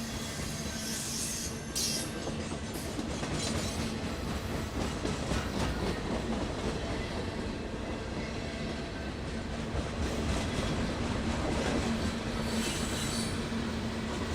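A train rolling on rails: steady running rumble with a low hum and wheel clatter, and brief high wheel squeals near the start and again near the end.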